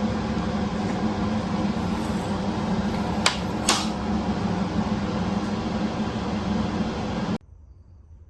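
Steady hum of a running fan, strongest in a low band, with two sharp clicks about half a second apart a little after three seconds in. The hum cuts off abruptly near the end, leaving a much quieter background.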